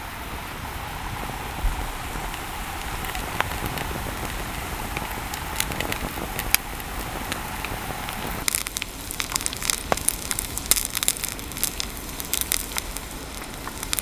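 Breaded Camembert frying in oil in a thin metal pan over a campfire: a steady sizzle, then from about eight and a half seconds in a dense run of sharp pops and crackles.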